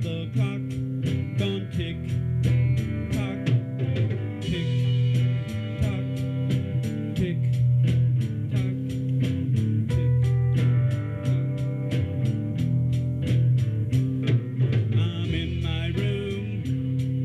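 Guitar-led music with a steady drum beat and a bass line.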